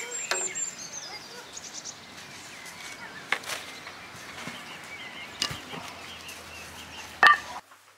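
Outdoor ambience with birds singing, broken by a few sharp knocks, the loudest just before the sound cuts off suddenly near the end.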